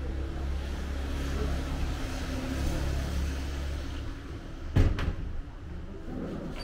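Road traffic going by with a steady low rumble that swells and fades, then a sharp double knock about three quarters of the way through.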